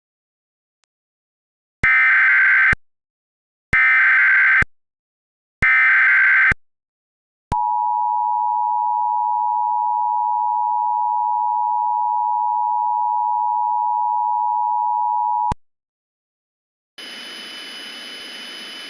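Emergency Alert System tones: three one-second bursts of screechy digital SAME header data, a second apart, then the two-tone attention signal held steady for about eight seconds, announcing an emergency alert. A steady hiss starts about two seconds before the end.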